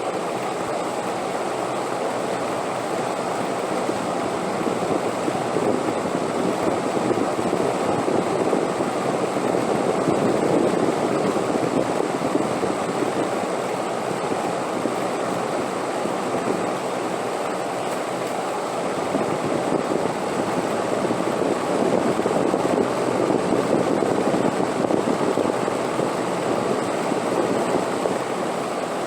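Wind blowing steadily as a continuous rushing noise, swelling and easing slowly, louder about a third of the way in and again near the end.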